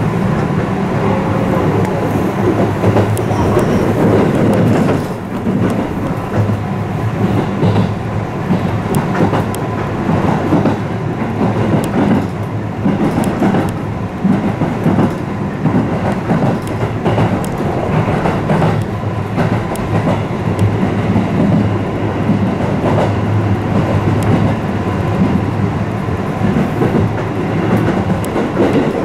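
Electric multiple-unit commuter train running at speed, heard from inside the passenger car: a steady rumble of wheels and motors with frequent clicks and clatter from the wheels over the track.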